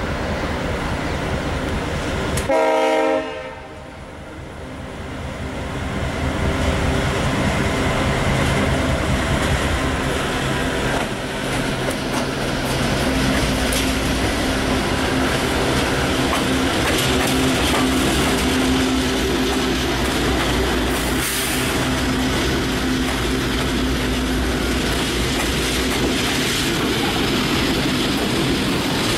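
Diesel-electric freight locomotive giving a short horn blast a few seconds in, followed by the steady rumble of its engine and the clickety-clack of the train rolling closer.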